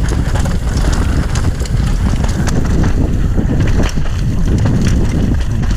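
Mountain bike descending a rough, rooty forest trail at speed: a steady rumble of wind buffeting the microphone and tyres on dirt, with many quick clicks and knocks from the bike rattling over roots and rocks.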